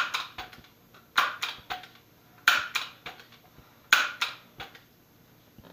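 A Daisy multi-pump air rifle being pumped: four strokes about 1.3 seconds apart, each a sharp clack of the pump lever followed by a softer click.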